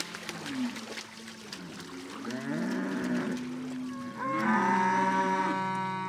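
Cattle mooing: short falling calls in the first couple of seconds, another call around two and a half seconds in, and a long, loud moo from about four seconds in.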